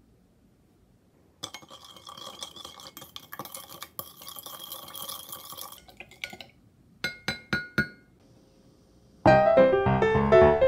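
A spoon stirring soy dressing in a Pyrex glass measuring cup, scraping against the glass for about four seconds, then four sharp clinks on the glass. Piano music starts near the end and is the loudest sound.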